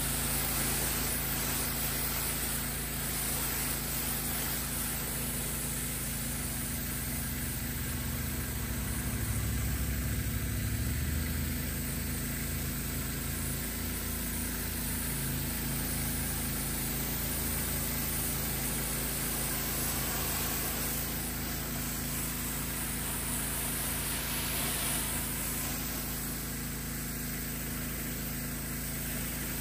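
Pressure washer running steadily: a constant motor hum under the hiss of the water jet rinsing foam off car paint.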